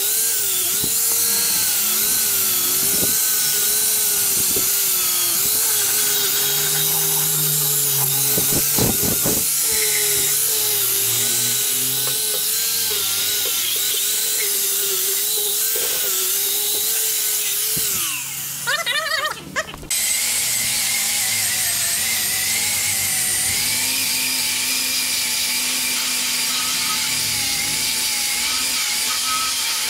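Angle grinder with a wire wheel running steadily against a steel chassis rail, scrubbing off rust, with a high whine that wavers as the wheel is pressed on. About two-thirds of the way through it breaks off briefly, then runs on at a different pitch.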